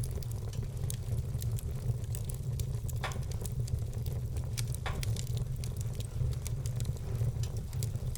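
Wood fire burning in a fireplace: a steady low rumble under many small, quick crackles, with two louder pops about three and five seconds in.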